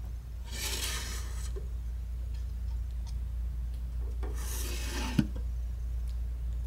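Sliding glass draft-shield door of a Mettler Toledo AE200 analytical balance scraping along its track twice, about a second each time; the second slide ends in a sharp click as the door shuts. A steady low hum runs underneath.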